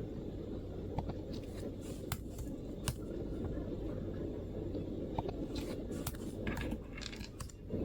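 MacBook keyboard keystrokes: scattered, irregular clicks, a few single ones at first and a quicker cluster of typing in the second half, over a steady low background rumble.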